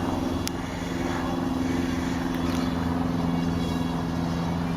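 Small electric motor of a PowerUp paper-plane kit spinning its plastic propeller at full speed, a steady buzzing hum at one pitch, with a single click about half a second in; the hum cuts off abruptly at the end.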